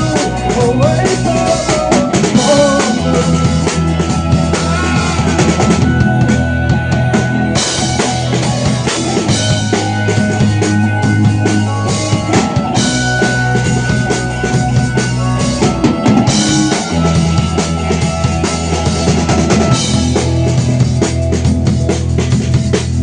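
Live rock band playing an instrumental passage, the drum kit steady under long low bass notes and held tones.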